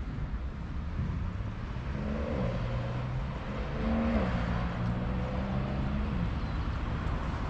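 Motor vehicle engine running near a walker, over a steady low rumble. Its pitch rises about two seconds in and again about four seconds in, holds level, then fades out about six seconds in.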